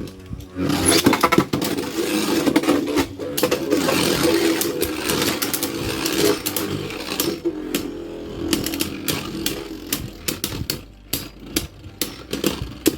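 Two Beyblade Burst spinning tops whirring and scraping around a plastic stadium, starting about a second in, with a steady whir and repeated sharp clicks as they collide. In the second half the whir thins out and the hits become scattered clicks and knocks.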